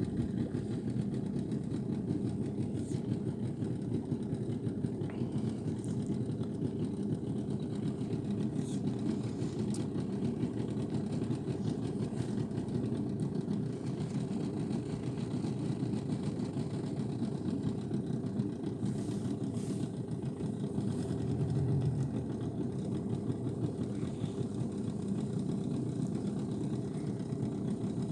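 Small boat motor running steadily, a constant low drone with no change in speed.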